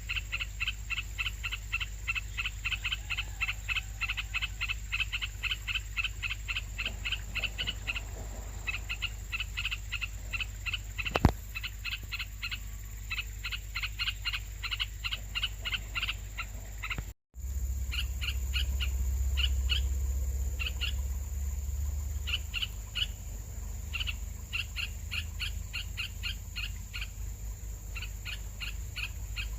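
Nestling birds chirping, short calls repeated rapidly at about five a second, the begging of hungry chicks. A single sharp click comes about eleven seconds in, and the sound cuts out for a moment about seventeen seconds in.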